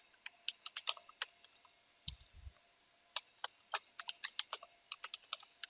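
Typing on a computer keyboard: a run of quick, irregular key clicks, with a brief low thump about two seconds in.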